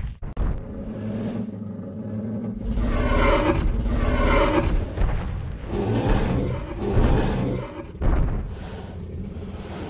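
Dinosaur sound effect: deep, rumbling growls and roars of a Tyrannosaurus rex, rising and falling in several waves.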